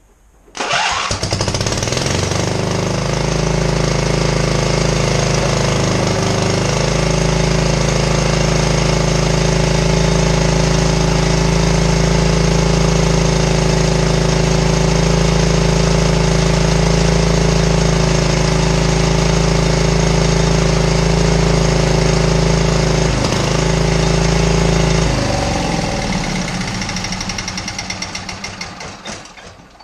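27 HP Briggs & Stratton V-twin with a fist-sized hole in the block catches about half a second in and runs loud and steady on one cylinder. It stumbles briefly near the end, then is shut off and winds down.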